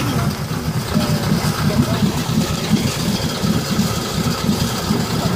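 DAF army truck's engine idling steadily with a low, even rumble. It is kept running while the truck sits stuck in muddy water so that water does not run in through the exhaust.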